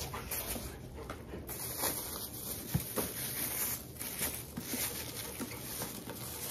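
Clear plastic bag and wrap rustling and crinkling as it is pulled off an acrylic box, with a few light clicks and knocks from handling the box and its foam packing.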